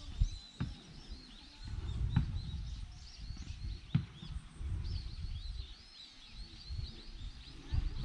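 Small birds chirping: many short, arching calls repeated throughout, high-pitched, with an uneven low rumble underneath and a few sharp clicks.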